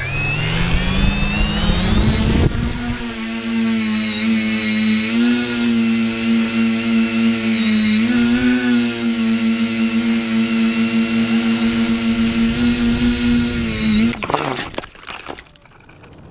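A tricopter's electric motors and propellers, heard from its onboard camera, spin up with a rising whine and then hold a steady, high buzzing drone that wavers slightly with throttle during flight. About fourteen seconds in the motors wind down abruptly, and a brief clatter follows as the craft crashes into tree branches.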